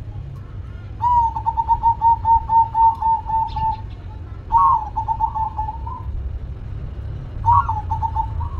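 Zebra dove (perkutut) calling in three phrases of rapid, repeated cooing notes. The first phrase runs about three seconds at roughly four to five notes a second; the next two are shorter and each opens on a higher note. A low background rumble runs underneath.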